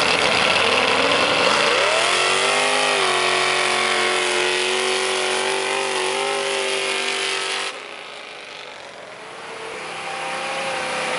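Mud-drag race trucks' engines running at full throttle down a mud track. The engine note climbs about two seconds in and then holds high and steady. It cuts off suddenly about three quarters of the way through, leaving a quieter, more distant engine.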